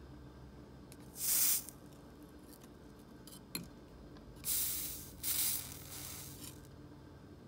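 Soldering iron on a fluxed brass joint, three short hissing sizzles as the flux boils off.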